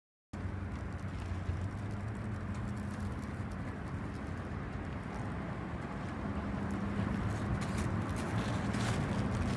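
CAF Urbos 100 tram approaching along street track: a low hum under city traffic noise, growing slowly louder as it nears, with a few faint clicks near the end.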